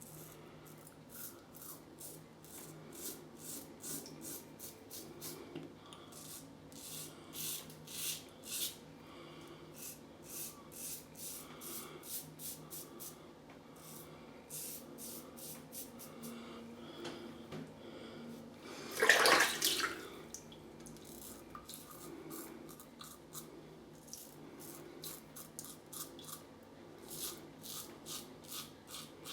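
Vintage Gillette Tech safety razor scraping through lathered stubble in short strokes, a few scratches a second, on an against-the-grain pass. A louder rush lasting about a second comes about two-thirds of the way in.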